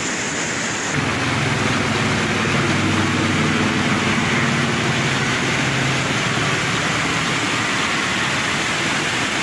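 An engine running steadily, a low hum that starts about a second in and fades in the second half, over a constant rushing noise like a fast river.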